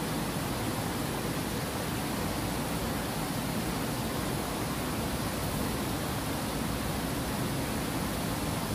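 Steady rush of water spilling over a low concrete weir into a pool.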